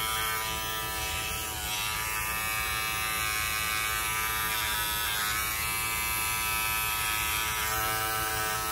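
Electric pet grooming clippers buzzing steadily while trimming the fur between a dog's paw pads, the hum sagging briefly in pitch about a second and a half in.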